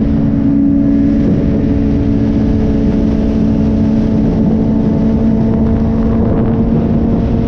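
Sport motorcycle's engine droning at a steady pitch while cruising at highway speed, heard from the saddle, with a constant rush of wind and road noise.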